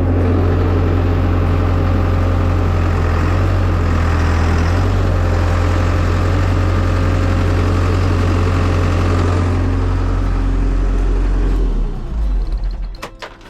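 New Holland backhoe's diesel engine running steadily, tested after its loader joystick tie rod has been repaired. The engine sound drops away about a second before the end, leaving a few clicks.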